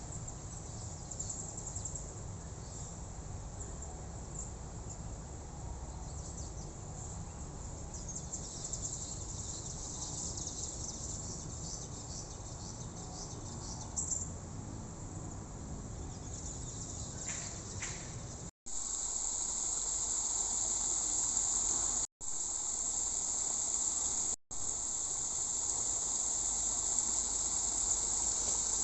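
A steady, high-pitched chorus of insects such as crickets, with a low rumble underneath. The chorus gets louder in the second half, and the sound cuts out briefly three times.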